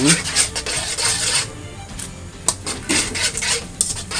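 A utensil scraping and clinking against a pan in quick, irregular strokes as pasta is stirred and tossed with raw egg off the heat.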